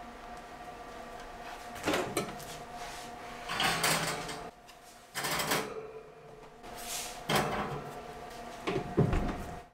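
A plastic measuring jug and two metal loaf pans being set down and slid onto an oven's wire rack: several separate knocks and scrapes, over a steady hum.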